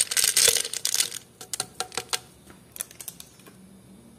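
Dry yeast granules pouring from a sachet into a plastic blender jar, a sandy hiss for about the first second, then a run of light clicks that die away after about three and a half seconds.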